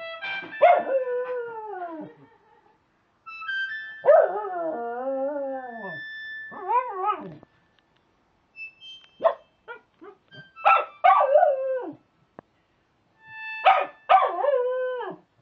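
A dog howling along to an Akai EWI electronic wind instrument: a series of howls, most sliding down in pitch, with one held and wavering for a couple of seconds, while the instrument plays short steady notes in between.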